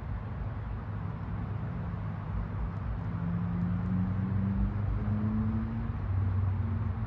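Low hum of an engine, its pitch rising a little about three seconds in, over a steady background hiss.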